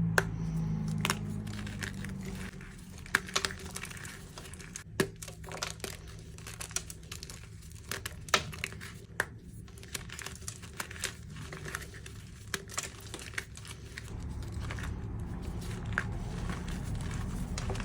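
Reformed gym chalk being crushed, a dense run of irregular crunches and crackles.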